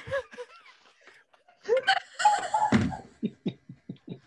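A woman laughing with delight: a loud squealing burst in the middle, then rapid short bursts of laughter, about five a second, near the end.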